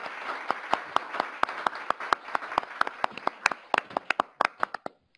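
Audience applauding with many overlapping claps, thinning to a few last scattered claps and dying away about five seconds in.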